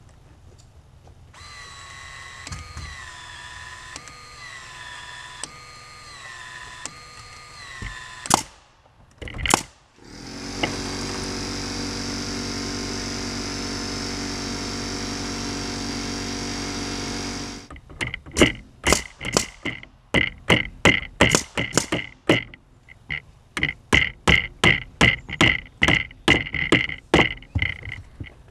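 A short repeating melody plays for several seconds. Then a power tool motor runs steadily for about seven seconds, followed by a long run of quick, sharp clicks, about two a second.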